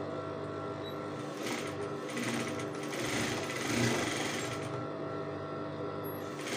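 Industrial sewing machine stitching a long seam through cotton fabric, running at speed for a few seconds in the middle.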